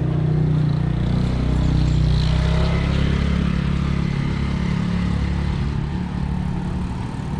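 A motor vehicle engine running steadily, a low hum whose pitch shifts only slightly.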